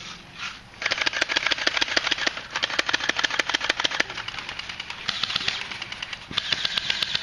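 Airsoft guns firing in rapid full-auto bursts: fast rattling runs of clicks lasting a second or more each, with brief pauses between them.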